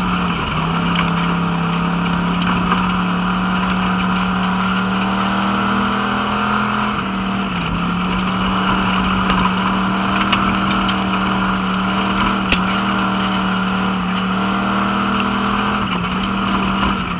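WISSOTA Pure Stock race car's engine running hard under racing load, heard from inside the cockpit. Its pitch climbs slowly and dips briefly about a second in, at about seven seconds and again near the end, with a few faint sharp ticks over it.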